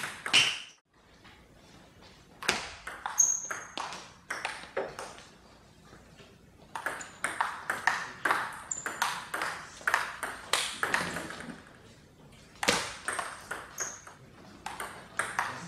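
Table tennis rallies: the ping-pong ball clicking sharply off the bats and the table in quick alternation, in three rallies with short pauses between them.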